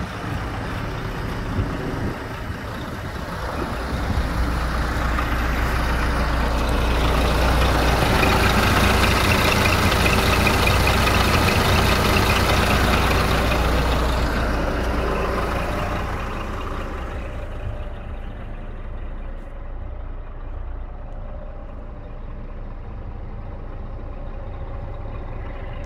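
Scania R480 truck's six-cylinder diesel engine idling steadily. It is loudest in the middle, with the engine exposed under the tilted cab, then becomes quieter and muffled about two-thirds of the way through, heard from inside the cab.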